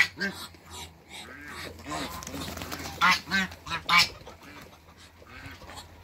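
Ducks calling: a string of short calls, loudest in a quick cluster about three to four seconds in, with quieter calls near the end.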